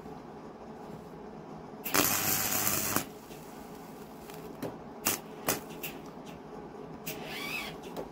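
MIG welder arcing on steel: one burst about a second long, then several short zaps as the weld is laid in short stitches.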